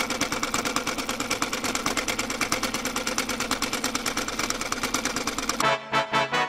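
Sewing machine running fast, a rapid, even rattle of needle strokes that cuts off near the end. A few short musical notes follow.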